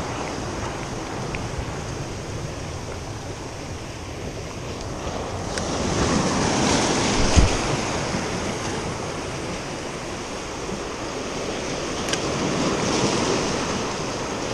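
Surf breaking and washing over shoreline rocks, swelling and easing, with a brief thump about seven seconds in.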